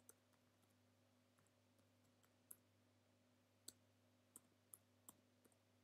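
Faint, scattered keystrokes on a computer keyboard, about half a dozen separate clicks a second or so apart, over a low steady hum.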